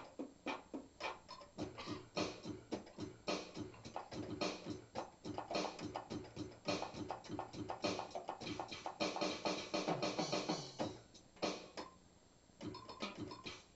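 Electronic keyboard played in quick, choppy runs of notes with a sharp, percussive attack. The playing pauses about eleven seconds in and picks up again briefly near the end.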